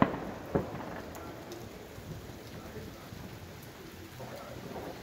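Two fireworks bangs about half a second apart, the first the louder, followed by steady noise with faint scattered pops.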